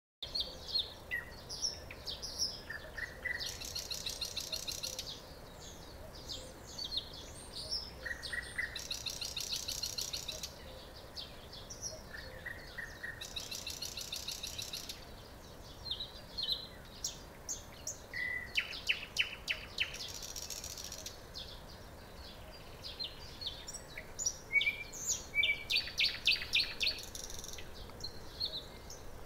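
Nightingale singing: varied phrases of short whistles and chirps, with rapid rattling trills every few seconds and a run of sharp repeated clacking notes about two-thirds of the way through.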